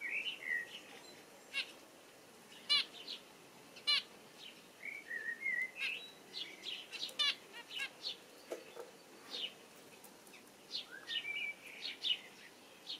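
Male house sparrow chirping: a long, uneven series of short, sharp chirps, some in quick runs of two or three.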